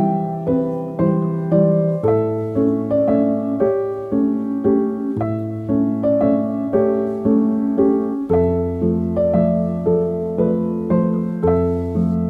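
Soft piano background music, notes struck about twice a second over low held bass notes that change about two seconds in and again about eight seconds in.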